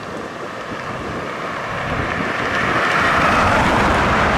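International wildland fire engine approaching, its engine and tyre noise growing steadily louder through the second half, with wind noise on the microphone.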